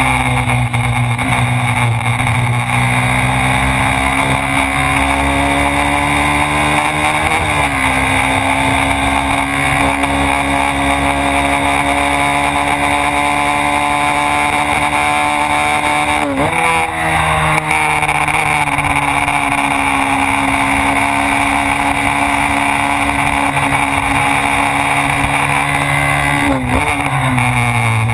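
Honda Twister 250's single-cylinder four-stroke engine running hard at high revs on track, over heavy wind rush on the microphone. The engine note breaks and shifts briefly three times, about a quarter, halfway and near the end.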